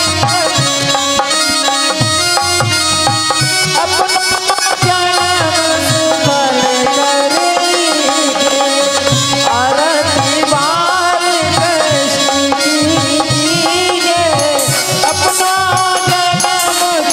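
Indian devotional folk music: a wavering melodic line over steady tabla-style hand-drum rhythm, with high jingling percussion near the end.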